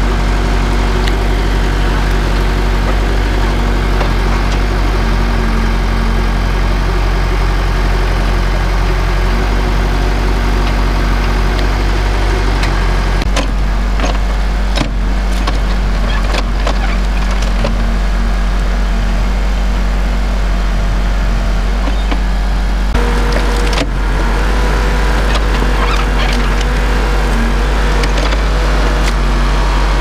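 Backhoe loader's diesel engine running steadily while its hydraulic digging arm works tree stumps out of the ground, the engine note shifting about 13 seconds in and again near 23 seconds as the load changes, with scattered light knocks.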